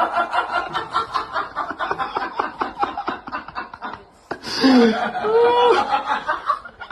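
A person laughing in quick, rapid pulses, then, about four and a half seconds in, a wavering pitched call.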